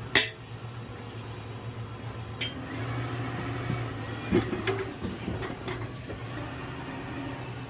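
Metal clanks and clinks of tire-changing tools and machine parts: one sharp clank right at the start, then a few lighter knocks, over a steady low hum.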